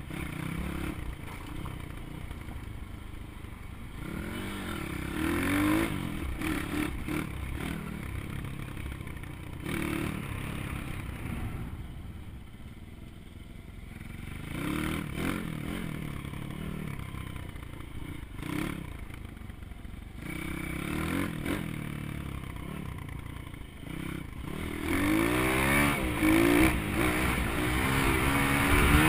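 Pit bike's small single-cylinder engine revving up and easing off again and again as it is ridden along a rough dirt trail, heard from the rider's helmet. The revs climb highest and loudest near the end.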